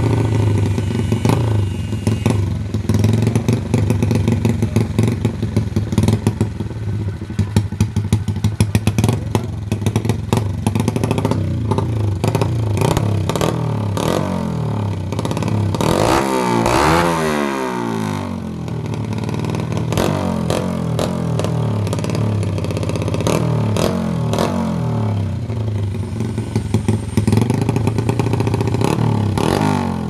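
Modified single-cylinder underbone motorcycle engine (56 mm bore, stroker crank, grind cam with 7.5 lift, 32 mm carb) running through a wide-open Noo Lamluka exhaust and being revved in many quick throttle blips. About halfway through it gets one longer rev that rises and falls, with a couple of shorter revs near the end.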